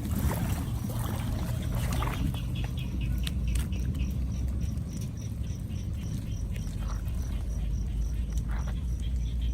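Water flowing into a cleared storm drain, a steady low rumble. A thin high chirp repeats about three times a second from about three seconds in.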